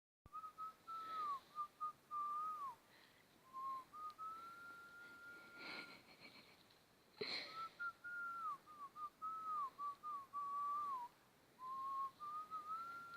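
A person whistling a tune in a clear, pure tone: a phrase of short notes that ends on a long held note, whistled twice. A couple of sharp clicks fall between the two phrases.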